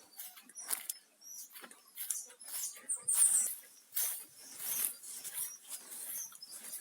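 Footsteps and rustling along a dirt path through dry vegetation, in irregular crackles with a louder brush about three seconds in, and short high chirps scattered throughout.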